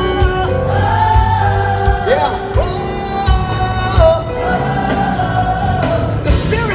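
Live gospel music: a choir and singers hold long wordless notes that slide between pitches, over a band with bass and drums.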